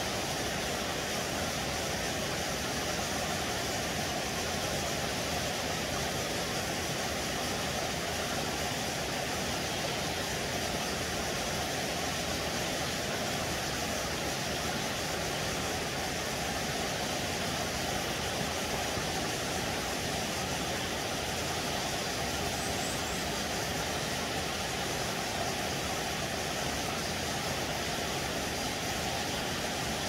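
Steady, even rushing of flowing stream water, unchanging throughout.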